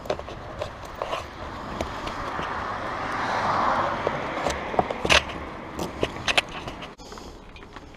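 The rushing sound of a passing vehicle swells and fades in the middle, over scattered clicks and scuffs of boots on gravel, with one sharp knock about five seconds in.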